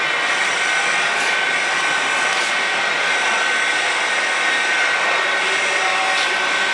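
Industrial mixer grinder running: a steady, even motor whine with hiss, holding level throughout.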